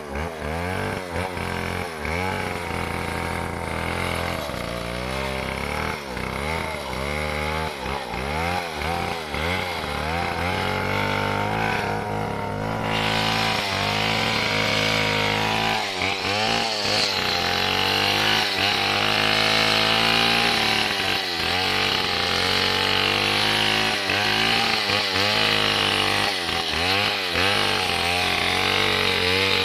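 Stihl 070 two-stroke chainsaw running steadily. From about halfway through it gets louder and harsher.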